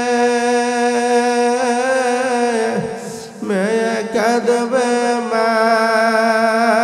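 A male preacher's voice chanting in a drawn-out, sung wail rather than speaking. He holds one note for nearly three seconds, breaks off briefly, then slides into another long held note.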